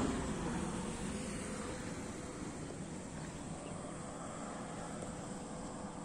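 Rumble of a vehicle passing on the expressway, fading away over the first couple of seconds into a steady low traffic noise, with a faint steady hum underneath.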